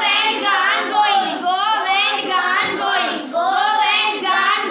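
Class of children chanting in unison, reciting English verb forms ("go, went, gone, going") back to the teacher in a sing-song drill.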